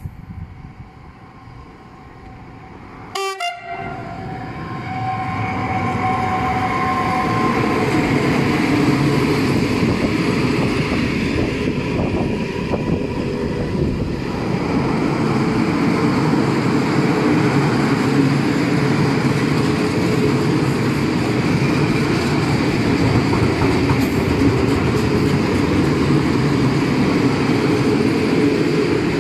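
Freight train of open coal wagons passing close by: a horn sounds a few seconds in, then the steady rumble and clatter of the wagon wheels over the rails.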